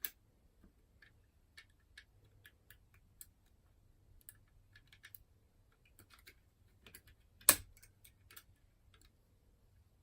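Light, irregular metallic clicks of a curtain pick and tension wire working the levers inside an ERA Fortress five-lever mortice lock while it is being picked, with one louder click about seven and a half seconds in.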